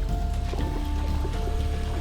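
Background music: a melody of held notes that step to a new pitch about every half to three-quarters of a second, over a steady low rumble.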